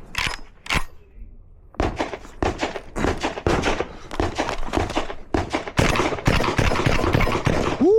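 12-gauge semi-automatic shotgun firing: a few single sharp reports, then from about two seconds in a rapid string of shots. The gun has just been lubricated after failing to run properly and now cycles round after round.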